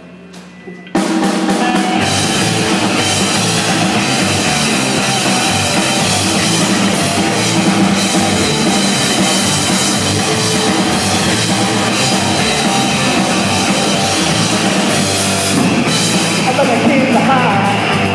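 Live punk rock from a three-piece band of electric guitar, electric bass and drum kit, kicking in loud about a second in after a brief near-quiet moment.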